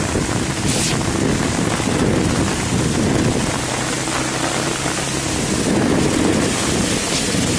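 Motorcycle riding through standing floodwater in heavy rain: the engine runs steadily under a continuous wash of splashing water and rain.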